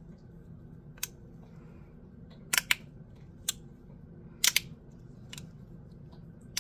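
Bean slider fidget toy, a resin half and a metal half, slid back and forth in the hand: its halves snap together in about eight sharp clicks, some in quick pairs.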